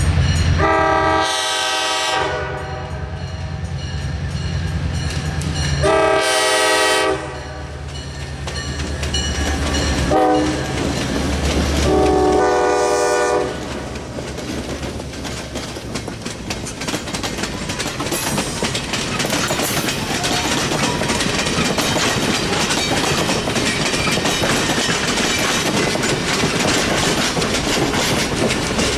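Lead diesel locomotive's horn sounding the grade-crossing signal, long, long, short, long, in a chord of several notes, over the rumble of three EMD diesel locomotives approaching and passing. Then passenger coaches roll by with a steady clickety-clack of wheels over the rail joints.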